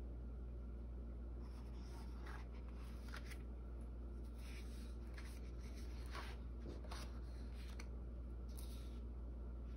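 Pages of a large coloring book being turned and handled by hand: a series of soft paper swishes and rustles, about eight in all, over a steady low hum.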